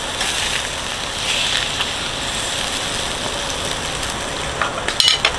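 Meat sizzling steadily on a charcoal grill, with a few sharp clicks near the end.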